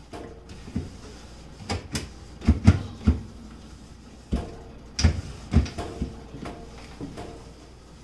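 Irregular knocks and clunks, about a dozen, as things are bumped and handled against a refrigerator during cleaning; a few leave a short ring, and the loudest come between two and three seconds in and at about five seconds.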